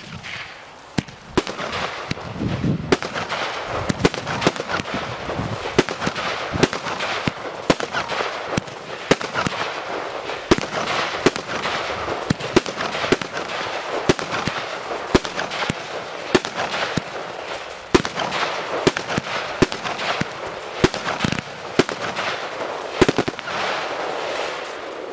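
A Vittali Supremo 25-shot firework barrage cake firing: a long run of sharp bangs, about one or two a second, over a constant crackling hiss, fading away near the end.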